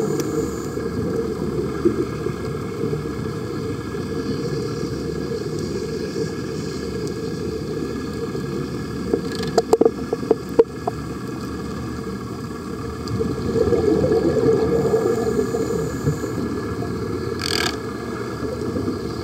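Steady, muffled underwater rumble picked up through an underwater camera's housing, with a brief cluster of sharp clicks about ten seconds in and one more click near the end.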